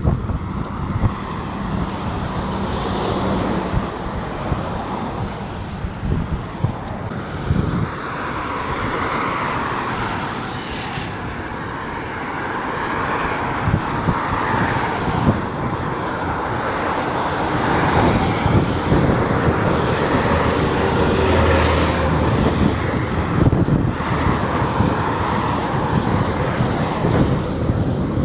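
Road traffic passing along a highway, with wind buffeting the microphone in gusts.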